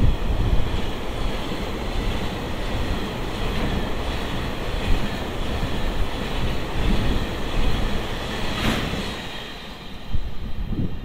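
Freight train of tank wagons rolling past at close range: a steady rumble and clatter of steel wheels on rail, with a short sharp sound about nine seconds in, easing near the end as the last wagon goes by.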